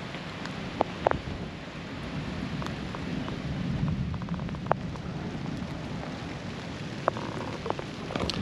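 Steady rain during a thunderstorm, with a low rumble of thunder that swells about halfway through, and a few scattered sharp taps.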